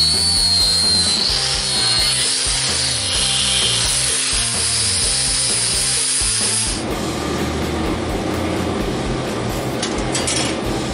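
Background music with a bass line over a power tool grinding on an Eaton M90 supercharger's aluminium housing, with a high wavering whine in the first two seconds or so. About seven seconds in the tool sound changes abruptly to a lower, denser grinding noise.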